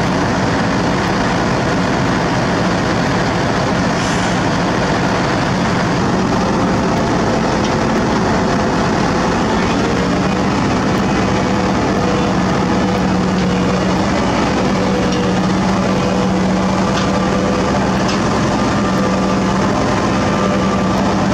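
Sakai ER501F road milling machine's diesel engine running steadily under load, a constant low drone with a dense grinding noise over it as its cutter drum works the asphalt.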